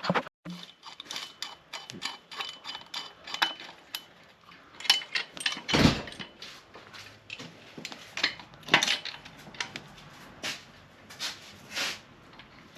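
Metal tools and parts clinking and knocking in irregular short clicks, with one heavier metallic knock about halfway through, as the engine is handled and fastened.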